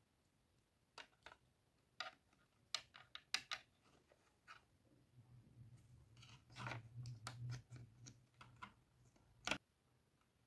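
Small plastic dollhouse furniture pieces clicking and tapping against the plastic toy house as they are handled and set in place: a dozen or so light, separate clicks, with a faint low hum in the middle.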